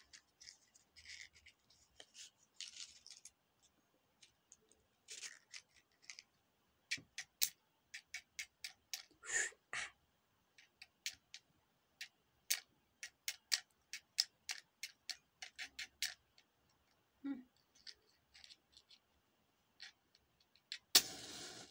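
Dry, irregular clicking and rattling of a wooden matchbox and matches being handled. Near the end a match is struck on the box, a short loud scrape as it flares.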